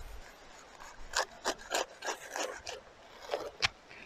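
A knife sawing through a toasted baguette sandwich, a run of short rasping strokes about three a second, with a pause and two more strokes near the end.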